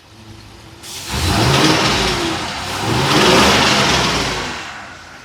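2020 Ford F53 chassis 7.3 L V8 gasoline engine, hot and misfiring on cylinder 4, blipped from idle. It revs up twice in quick succession, with the pitch rising and falling, then drops back to idle.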